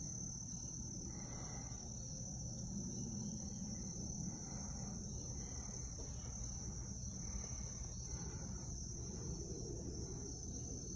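Insects trilling in one continuous, steady, high-pitched drone, over a low rumble.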